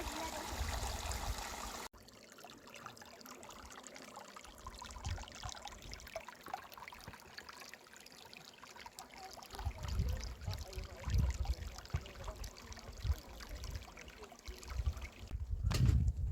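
Running water, a stream or trickle, fairly loud at first and then much quieter after an abrupt cut about two seconds in. From about ten seconds in, irregular low thumps and rumbles come and go.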